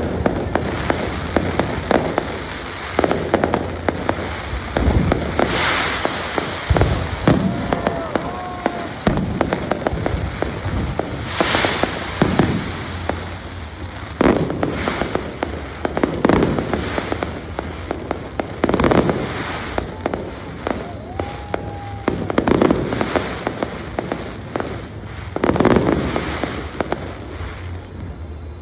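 Fireworks display: aerial shells bursting one after another, every second or two, with crackling between the bangs and a steady low rumble underneath.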